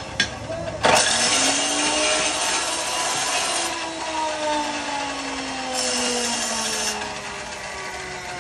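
Electric chop saw cutting through a long bar: a loud grinding hiss about a second in that eases off after a few seconds and returns briefly near six seconds, while the motor's pitch slowly falls under the load.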